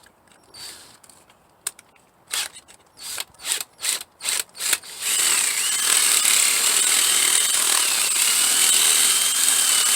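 Power drill triggered in several short bursts, then run steadily with a high whine as it works on a marine battery terminal that does not fit.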